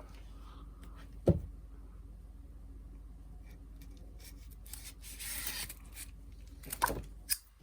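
Opening and handling the packaging of a 12 by 12 inch pad of patterned craft paper: a single thump about a second in, a soft rustle of the wrapping in the middle, and a few small clicks near the end.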